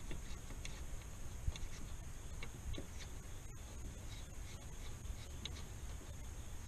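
Faint, irregular light ticking and scraping of a nut being spun off a threaded radiator-mount stud by hand.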